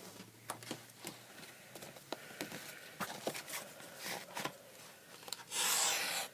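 Small Leatherman multitool blade slicing through a sheet of paper: a brief hissing cut near the end, after a few light clicks of the tool and paper being handled.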